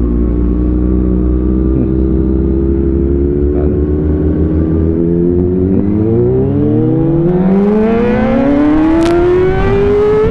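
Inline-four sport-bike engine running at a steady pitch, then rising steadily in revs from about six seconds in as the bike accelerates, with a small dip in pitch at the very end.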